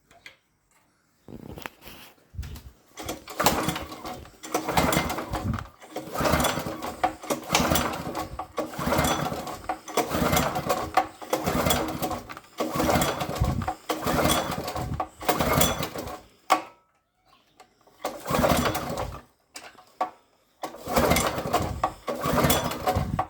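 Small petrol engine of a Vari Robit garden cultivator being cranked over and over by its recoil starter, each pull turning the engine through a quick run of compression strokes without it catching: a cultivator that won't start. More than a dozen pulls follow one another, with two short breaks near the end.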